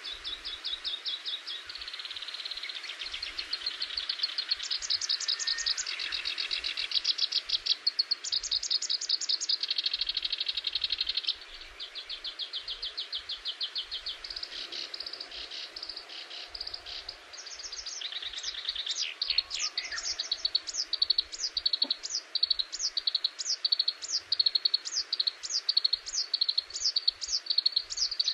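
Songbirds singing, with fast high trills, then a long series of repeated high downward-sliding notes, about two a second, near the end.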